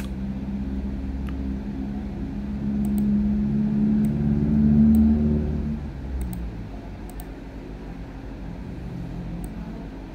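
A motor vehicle's engine running with a steady low hum. It grows louder to a peak about five seconds in, then eases off. A few faint clicks sound over it.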